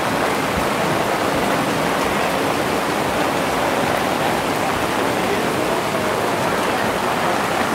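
Heavy rain downpour: a steady, dense hiss of falling rain mixed with rushing water.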